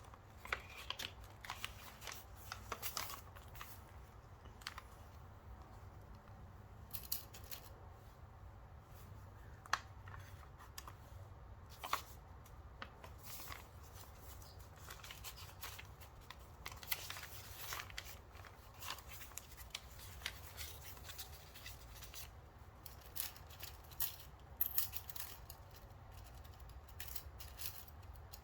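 Paper craft pieces being handled at a table: scattered rustles and light clicks at irregular moments.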